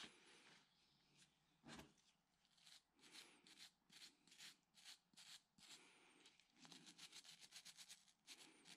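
Faint scratching of a small wire brush scrubbing carbon on an engine valve head, in slow separate strokes at first and quicker, denser strokes from about two-thirds of the way in. The carbon is barely coming off after the valve soaked in automatic transmission fluid.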